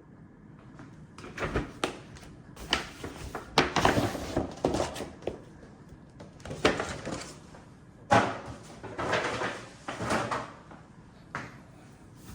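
Cardboard and paper packaging being handled and opened: irregular bursts of rustling and scraping, with a few sharp knocks.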